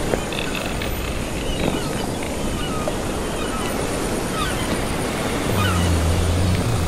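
Sea ambience: a steady wash of waves with faint, high seagull cries scattered through it, and a low drawn-out hum coming in about five and a half seconds in.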